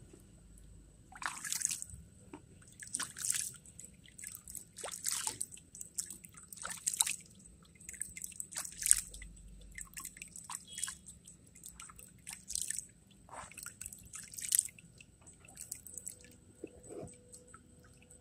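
Water dripping and sloshing in a plastic gold pan as it is tilted and swirled to wash down the black-sand concentrate, in short irregular splashes every second or two.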